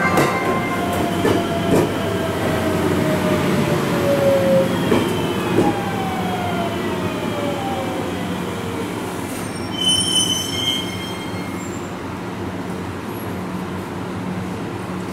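JR Shikoku 7000 series electric train slowing to a stop: its VVVF inverter whine falls in pitch over about eight seconds, with a few clacks of wheels over rail joints early on the way in. A brief high brake squeal comes about ten seconds in, over a steady low hum.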